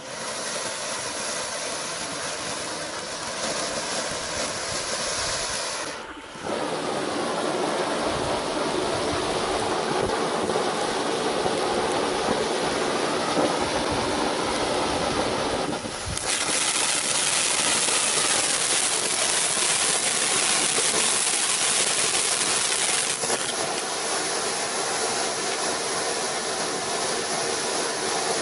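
IM4110 5 Minute Safari ground fountain firework spraying sparks with a continuous loud hiss. The hiss grows louder about six seconds in and turns louder and higher around sixteen seconds, then eases a little about twenty-three seconds in.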